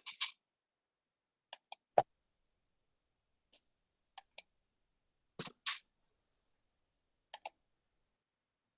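Computer mouse clicking: a few short, sharp clicks, most in quick pairs, with silence between them; the loudest is a single click about two seconds in.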